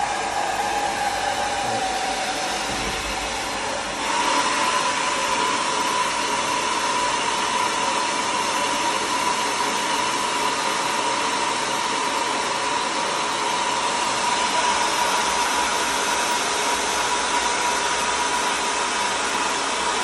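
Handheld hair dryer running on its cold setting, blowing air into an inflatable toy's propped-open valve. It is a steady rush of air with a faint whine. About four seconds in, it gets louder and the whine steps up in pitch.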